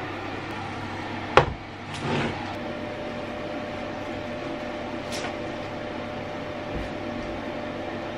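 A fan oven's fan running on with a loud, steady hum just after the oven has been switched off. A sharp knock about a second and a half in, followed by a softer thump, stands out above it.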